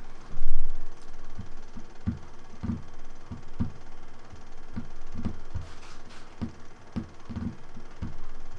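Soft, irregular low knocks and thumps, roughly one or two a second, with a louder low bump just after the start.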